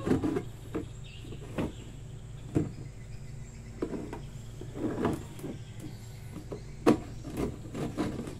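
A hand saw's strokes on a hollow plastic jerrycan stop just after the start, then a few scattered knocks and taps as the can is turned over and the saw is set back on it.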